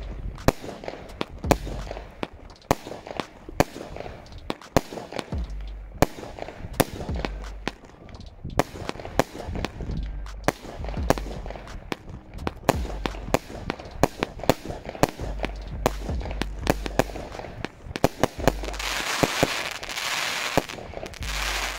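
Consumer firework battery firing shot after shot in quick succession, sharp bangs of launches and bursts. Near the end comes a dense crackling hiss as crackling stars go off.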